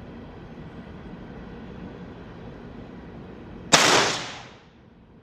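A single shot from a Savage Precision MDT bolt-action rifle: one sharp crack about three and a half seconds in that dies away over about a second.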